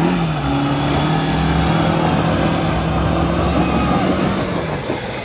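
Suzuki Jimny JB74's four-cylinder engine revving up and pulling steadily under load for about four seconds, then easing off, over a loud rushing noise.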